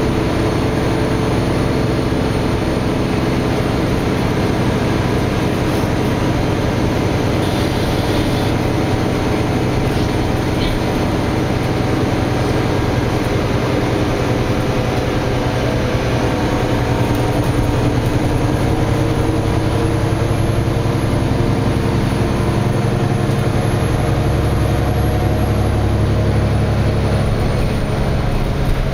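Nova Bus LFX transit bus heard from inside the passenger cabin while driving, its Cummins ISL9 diesel engine running steadily over road and tyre noise. About halfway through, a thin high whine comes in and fades again near the end, and the deep engine tone grows stronger over the last few seconds.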